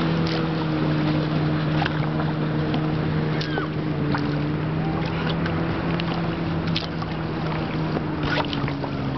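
A boat motor hums at a steady pitch over water and wind noise, dipping slightly in pitch near the end, with scattered clicks and a few short chirps.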